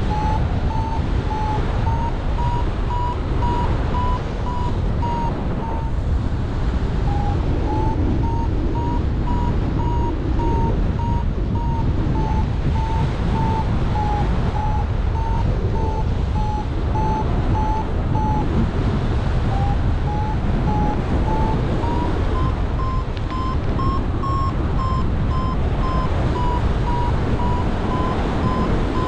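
A paraglider's variometer beeps in a steady run of short beeps, several a second, its pitch wavering slowly up and down: the climb tone of a glider rising in lift. Wind rushes over the microphone throughout.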